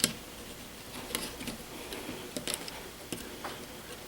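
Small, irregular clicks and taps from hands handling thermostat wires and the thermostat base, about seven in four seconds.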